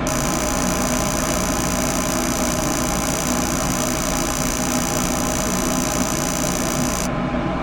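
Gas furnace's motor running steadily with a hum and a high whine. The whine cuts off suddenly about seven seconds in while the lower hum continues.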